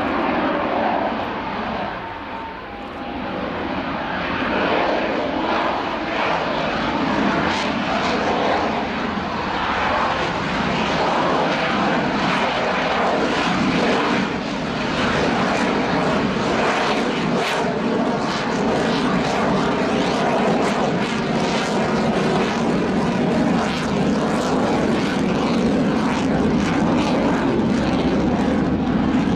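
Lockheed Martin F-22A Raptor jet fighter flying a display pass, its twin Pratt & Whitney F119 turbofans giving a loud, continuous rushing jet roar. The roar dips briefly about two seconds in, then holds steady and loud.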